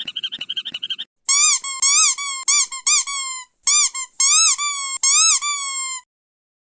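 Squeaky chicken toy being squeezed: a rapid fluttering squeak first, then about nine separate squeaks, each rising and falling in pitch.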